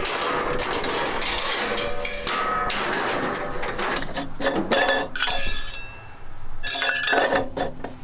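Irregular metallic clinks and clanks, several short knocks with brief ringing, over a rustling noise.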